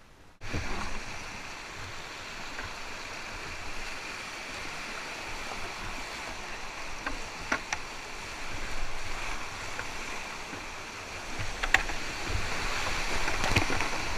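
Whitewater rapids rushing around a kayak, heard up close, starting abruptly about half a second in, with a few sharp clicks and growing louder over the last few seconds.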